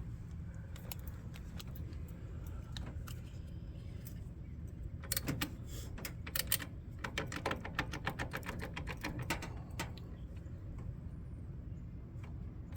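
Ratchet wrench clicking in short irregular runs, from about five seconds in until near ten seconds, as the nut on the alternator's rear output-terminal post is worked. The nut won't come off because the whole terminal post is spinning with it.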